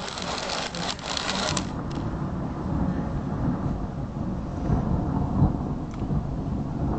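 Thunder: a crackling burst over the first second and a half, then a long low rumble rolling on.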